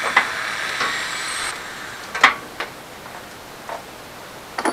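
A steady mechanical whir that cuts off about a second and a half in, then scattered knocks and metal clinks of small hardware being rummaged through, the sharpest a little past the middle.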